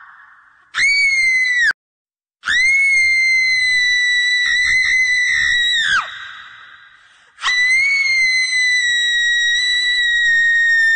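High-pitched human screams with an echo: a short shriek cut off abruptly about a second in, then two long held screams, the first trailing off in a falling pitch near the middle and the second starting soon after.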